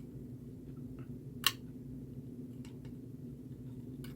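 A few small, sharp clicks and taps from handling a resistor and the kit's circuit board, the loudest about a second and a half in, over a steady low hum.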